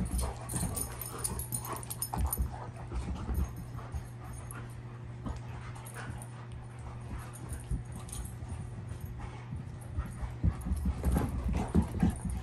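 Irish Setters play-fighting: scuffling and bumping on carpet with the dogs' play noises, busier and louder near the end.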